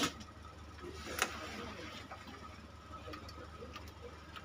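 Quiet workbench room tone: a low steady hum with a faint thin high tone, and a single sharp click about a second in.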